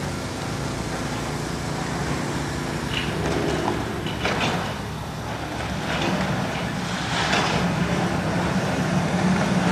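An engine running steadily, its low hum growing louder in the last few seconds, with a few short rushing noises.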